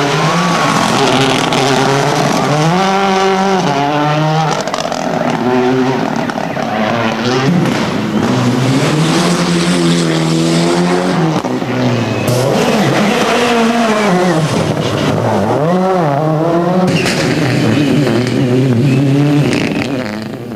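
Rally cars' engines revving hard as they drive past, the pitch climbing and dropping again several times.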